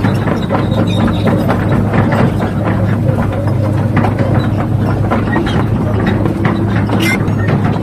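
Radio-controlled model vehicle running: a steady low hum with a dense, continuous clatter of small clicks and rattles.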